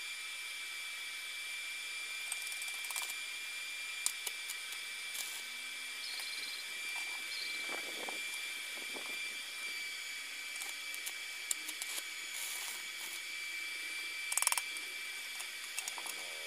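Stick-welding setup: a steady high-pitched whine, with scattered light clicks of the electrode holder and metal parts being handled, and a few brief crackles about eight seconds in and again near the end.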